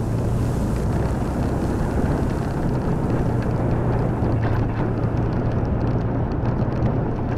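A vehicle on the move: a steady low engine hum under road noise, the hiss thinning out about two-thirds of the way through.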